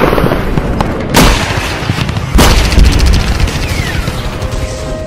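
Cinematic war sound effects: heavy booms and explosions over a deep rumble, with a rapid burst of gunfire about halfway through. A short falling whistle follows near the end.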